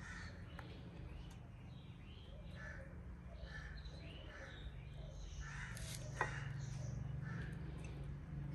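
Crows cawing over and over, with a single sharp knock about six seconds in and a low steady hum underneath.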